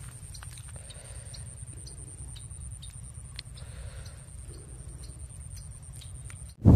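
Faint outdoor ambience: a thin steady high whine and scattered short chirps over a low rumble. Near the end, loud wind noise on the microphone cuts in suddenly.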